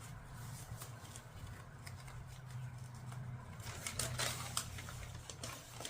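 Hands working on a scooter project: scattered light clicks and rustling of handled materials, busiest about four seconds in, over a steady low hum.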